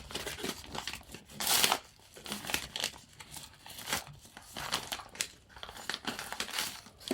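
Packaging crinkling and tearing as a parcel is opened by hand, in irregular rustles and clicks, loudest about one and a half seconds in.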